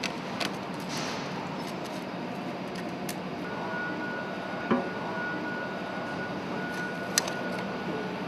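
A few sharp metallic clicks and taps from a screwdriver working the toggle clips of sheet-metal engine cladding, over steady machinery background noise; a faint steady whistle joins about three and a half seconds in.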